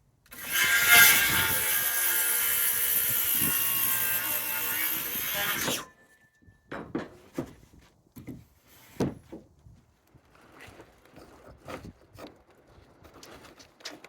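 An electric power saw cutting through wood for about five seconds, then stopping abruptly. Scattered knocks and clatters follow.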